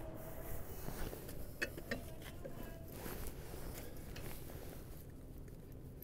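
Faint scuffs and a few light metallic clicks as a lug wrench is handled and set onto a pickup truck's wheel lug nuts. The clicks are scattered and come mostly in the first half.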